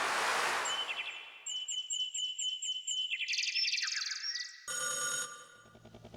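Roland XP-10 synthesizer playing sound-effect presets: a swell of noise fades out, then synthetic bird chirps repeat rapidly. A climbing run of bright tones follows, then a telephone-like ring about two-thirds of the way in.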